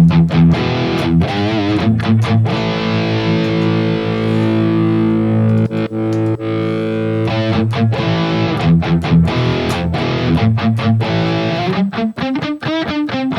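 High-gain electric guitar riff through a Tube Screamer-style overdrive into an amp: fast picked, choppy notes, then a chord left ringing and slowly fading for several seconds, then more quick riffing.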